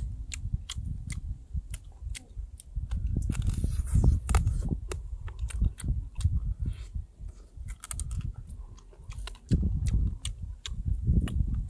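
A person chewing and biting food close to the microphone, with many small, sharp clicks and crunches over soft, irregular mouth thuds.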